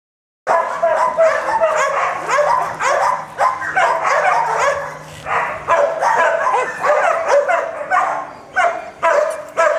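Kelpie-mix dog barking and yipping excitedly in quick succession, its pitch sliding up and down between calls, starting about half a second in.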